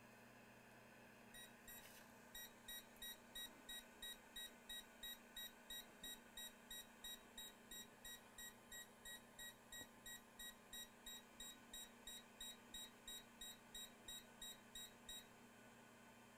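Electronic beeper sounding a short, high beep over and over, about two and a half beeps a second, starting a couple of seconds in and stopping shortly before the end, over a faint steady hum.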